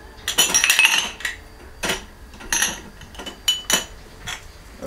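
Dishes and cutlery clinking: a quick cluster of clinks in the first second, then single clinks about once a second.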